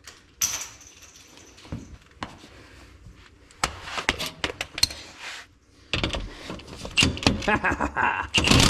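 Metal hand tools clinking and clanking against the rear shock mount bolt of a Jeep Wrangler as a stubborn, tight nut is worked. The clanks come scattered, grow busier about six seconds in, and a harsh burst of noise lasting about a second comes right at the end.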